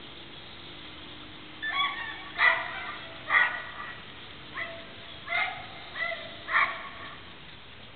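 Young puppies yipping in play: about seven short, high barks, starting a little under two seconds in.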